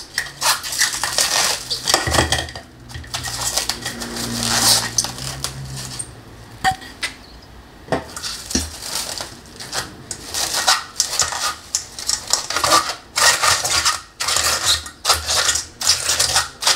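Plastic cling wrap being stretched and pressed over a stainless steel mixing bowl, a run of crinkling and crackling, mixed with knocks and scrapes of the metal bowl being handled.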